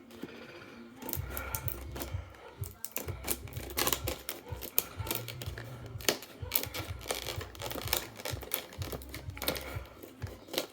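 Product box being handled: irregular clicks, taps and rustling, with a patchy low rumble from the handling.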